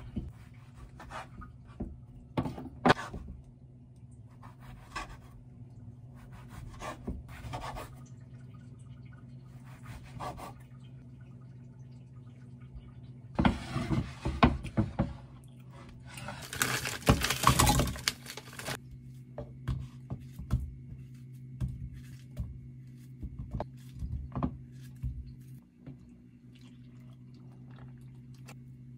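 Chef's knife cutting through soft bread rolls filled with strawberries, knocking on a wooden cutting board in a series of sharp taps. Two longer stretches of rustling, scraping noise follow, with a few light clicks and a steady low hum underneath.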